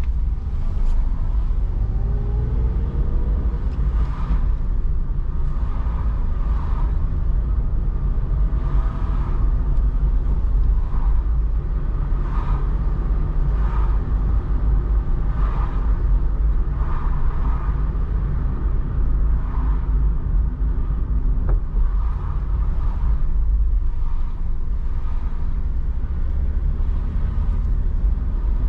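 Steady low road and engine rumble heard inside a moving car's cabin in heavy rain. A faint sound repeats about every second and a half.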